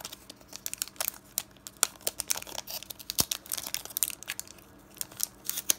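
Foil wrapper of a Pokémon TCG booster pack crinkling in the fingers as it is pulled and picked at to tear it open, a stubborn pack that won't open easily. It comes as many sharp, irregular crackles, with a brief lull a little past two-thirds of the way through.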